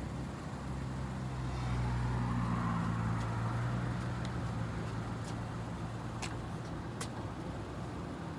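A motor vehicle engine running steadily. It grows louder about two seconds in, then eases off, as a vehicle passing close by would. A few light clicks come later on.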